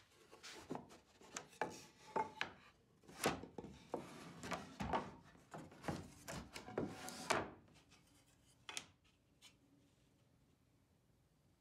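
Wooden boards and plywood panels handled on a workbench: a string of light knocks and scraping rubs as pieces are set down and slid into place, thinning out to a few faint ticks after about seven seconds.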